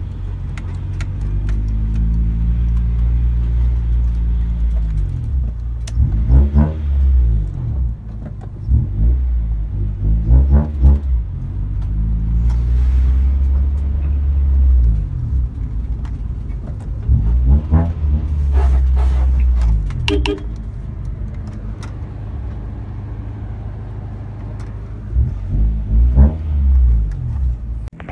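Car engine heard from inside the cabin while driving, a steady low drone with the revs rising and falling again in short bursts several times.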